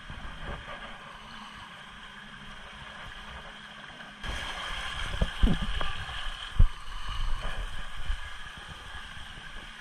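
Water rushing along an open fibreglass water slide as a rider slides down it. About four seconds in the sound jumps louder, with splashing and irregular thumps as the rider drops into the splash pool.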